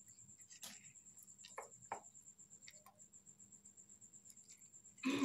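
Faint clicks and light knocks of kitchen handling while the herbal drink is being prepared, over a fast, even, high-pitched ticking, with a louder short knock or rustle at the very end.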